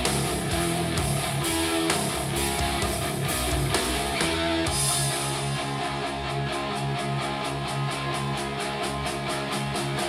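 Instrumental rock music with guitar, played back through a JBL speaker. A fast, even high percussion tick comes in about six seconds in.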